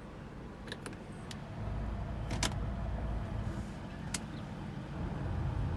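The 1999 Infiniti QX4's 3.3-litre V6 running, its low rumble growing louder about a second and a half in. Several sharp clicks come from the cabin as the automatic shifter is moved through the gears, the loudest about two and a half seconds in.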